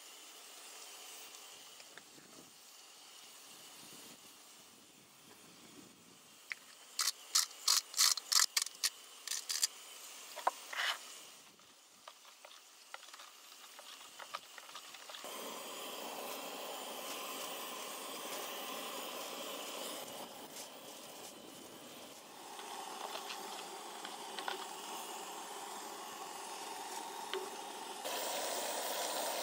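Metal spoon stirring a dressing in a plastic bowl: a quick run of about ten sharp clicks a few seconds in, and later a steady hiss with a few light clicks.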